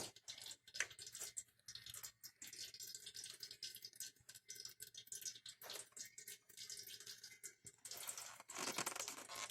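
Engine oil dripping and trickling from a punctured oil filter, with many small ticks and scrapes of hands working the filter, louder near the end.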